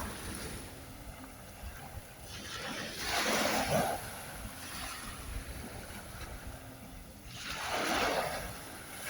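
Ocean waves washing ashore, two swells of surf about five seconds apart, over a low wind rumble on the microphone.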